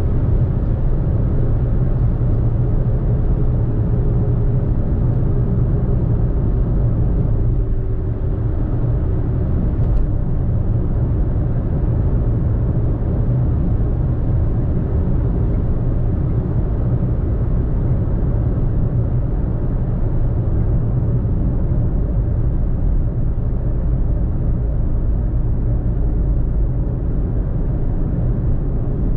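A car driving along a road: a steady low rumble of tyre and engine noise, with a single faint click about ten seconds in.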